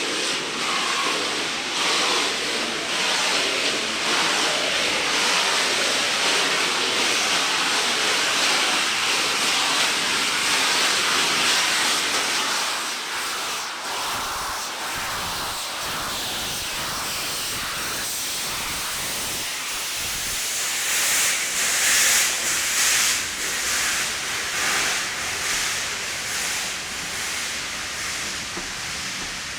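Steam locomotive hissing off steam in a loud, steady rush. It eases a little about halfway through and swells briefly again later.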